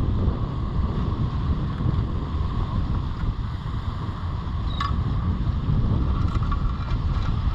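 Wind buffeting the microphone, a steady low rumble, with one brief sharp click about five seconds in.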